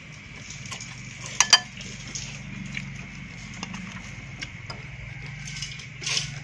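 Eating utensils clinking against bowls during a meal of noodle soup, with two sharp clinks about a second and a half in and a few lighter taps, over a low steady hum.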